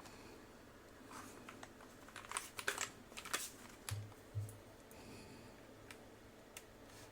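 Keys typed on a custom tenkeyless mechanical keyboard with TTC long-pole tactile switches and Cherry-profile PC and ABS double-shot keycaps. An uneven flurry of clacky keystrokes comes in the first half, two dull low thuds follow around four seconds, and then a few single key presses.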